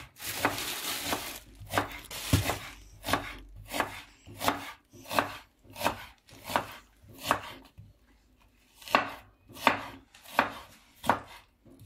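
Kitchen knife slicing a white onion on a wooden cutting board: a steady run of sharp cuts about one every three-quarters of a second, with a short pause about eight seconds in. A brief rustle comes at the start.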